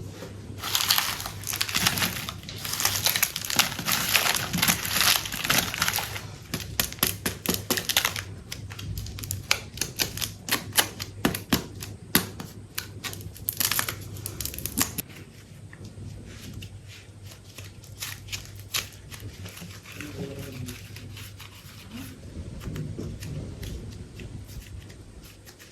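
Plastic packaging crinkling, crackling and tearing as a clay pack is handled and opened, with rapid clicks and crackles. It is loud for about the first fifteen seconds, then turns quieter with only scattered clicks.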